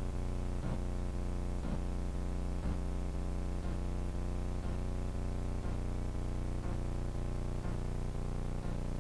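Steady buzzing hum made of several fixed tones that do not change in pitch, with a short click about once a second.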